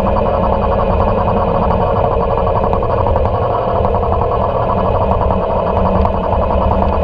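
Motorcycle engine running at a steady cruising speed with wind and road noise, held at one pitch inside a road tunnel.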